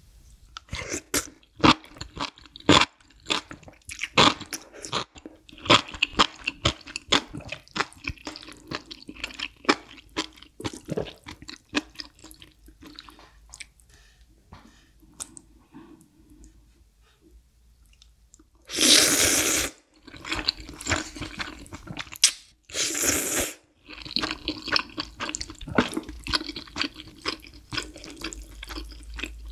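Close-miked eating sounds: wet chewing and smacking of spicy stir-fried noodles and enoki mushrooms, with many short clicks throughout. About two-thirds of the way in come two long, loud slurps, each about a second, a few seconds apart.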